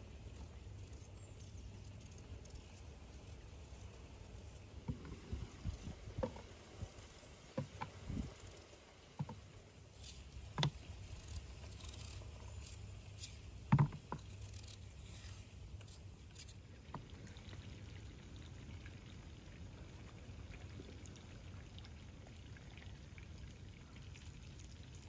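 Knife peeling and slicing a raw potato by hand: scattered soft clicks and knocks as the blade cuts and slices drop into a cardboard tray, with one louder knock about halfway through, over a steady low outdoor background.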